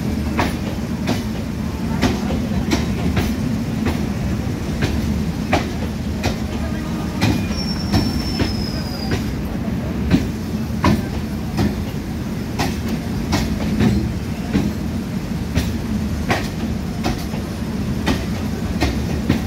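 Indian Railways electric local train (EMU) rolling past the platform: a steady low rumble with a string of sharp wheel clicks over the rail joints. About eight seconds in there is a brief high, falling squeal from the wheels.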